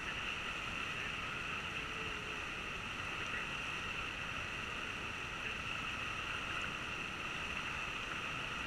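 Steady rushing noise of river water flowing around an inflatable raft, mixed with wind on the microphone, even in level throughout.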